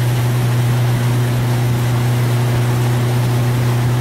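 A small open boat's outboard motor runs at a steady cruising speed, giving a constant low hum with a rushing hiss over it.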